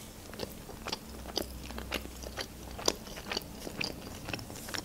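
A person chewing a mouthful of pan-fried pelmeni dumplings, with short, sharp mouth clicks and crunches coming irregularly, about three or four a second.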